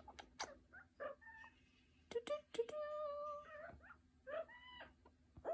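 Double yellow-headed Amazon parrot vocalising: a few short clicks and squeaks, then a steady held note lasting about a second, followed by a shorter call near the end.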